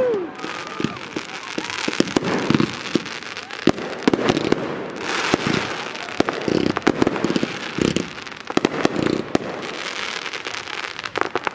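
Consumer (Class C) fireworks going off overhead: many sharp bangs and crackling pops in quick, irregular succession over a continuous crackle.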